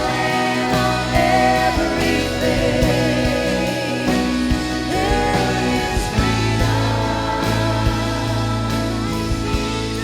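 A live worship band playing a contemporary Christian song, with singing over bass and a steady drum beat.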